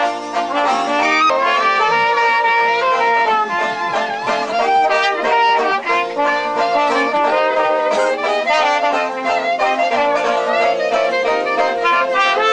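Jazz music led by brass and reeds, with several horns such as trumpet playing melody lines together over a steady band.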